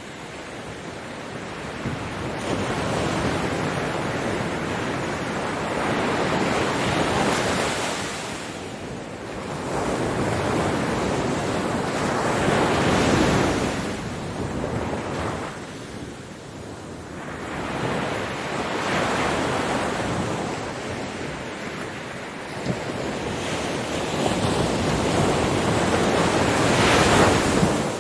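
Ocean surf breaking on a beach, the wash swelling and fading four times, roughly every six seconds, with the last wave the loudest just before the end.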